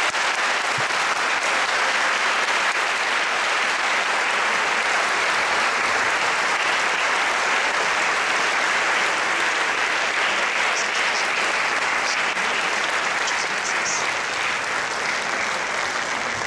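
An audience applauding: sustained clapping throughout, thinning out near the end.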